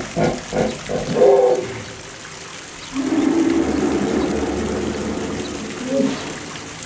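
Hippopotamus calling: a quick run of short, pulsed honks over the first second and a half, then a long, loud, drawn-out call from about three seconds in until about six seconds in.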